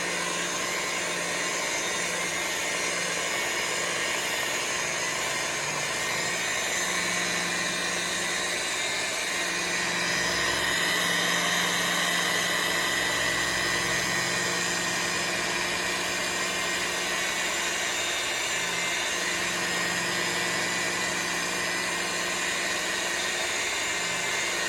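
Electric rotary buffer with a wool pad running steadily at low speed, cutting compound into a car's clear coat: a steady motor hum with the pad hissing across the paint, a little louder for a few seconds midway.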